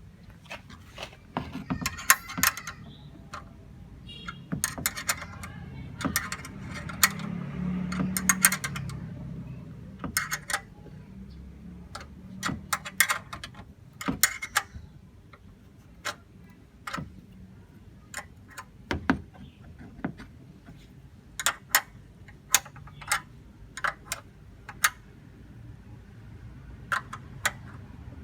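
Irregular sharp clicks and light metallic clinks of parts and tools being handled during fitting work, with no engine running.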